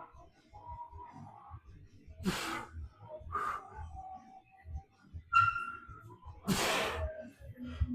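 A man breathing hard while straining through a heavy lift: two loud forceful breaths, about two seconds in and again near seven seconds, with quieter breaths and small sounds between.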